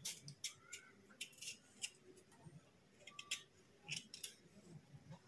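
Small kitchen knife paring the green skin off a watermelon rind: faint, irregular crisp scraping strokes of the blade through the firm rind.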